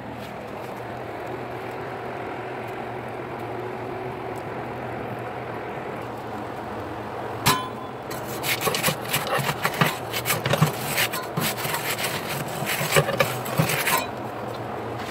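Wood-fired pizza oven: a steady low hum, then a sharp click about halfway through, followed by several seconds of rapid, irregular scraping and crackling that stops suddenly near the end.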